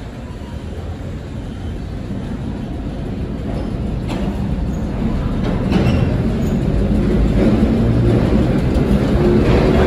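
Vintage R1-9 subway train pulling out of the station, its rumble growing steadily louder as it picks up speed, with a few sharp clicks about four and six seconds in.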